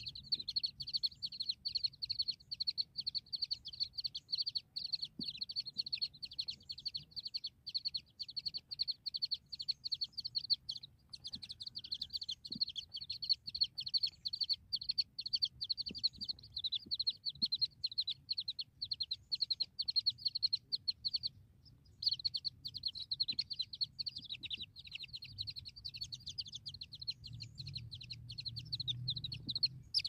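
Nestling birds begging with rapid, high-pitched cheeps in a continuous stream, broken by two short pauses, about eleven and twenty-one seconds in.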